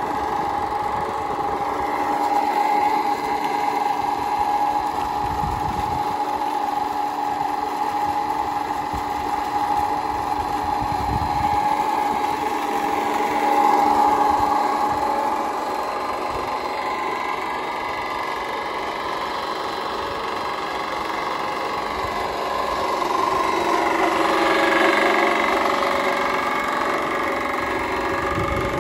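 Solar-powered electric motor driving a tubewell water pump through a belt and pulley, running with a steady whirring hum.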